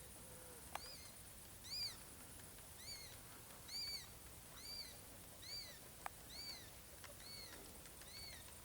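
A bird calling a series of short, arching chirps, roughly one a second, growing fainter near the end. Two sharp clicks are heard, one about a second in and one about six seconds in, over a steady high hiss.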